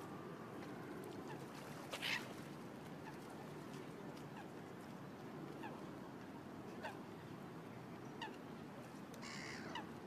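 Scattered short calls from water birds, with the loudest about two seconds in and a brighter cluster near the end, over a steady low background noise.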